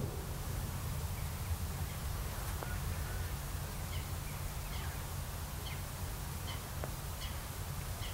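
Low wind rumble on the microphone, with a string of short, high bird chirps from about four seconds in.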